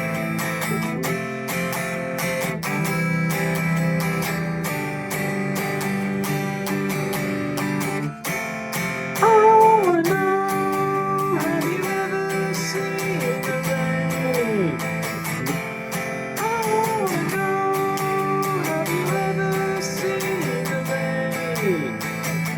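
Guitar strummed steadily through the song's chords of A minor, F, C and G. About nine seconds in, a voice joins with long held notes that slide downward at their ends.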